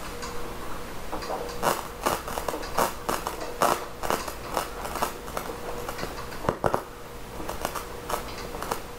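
Scratchy, crackling static from a vintage 1970s Sansui stereo receiver as its volume knob is turned, in irregular pops and scrapes over a steady faint hum. This is the noisy volume control, the sign of a dirty volume potentiometer.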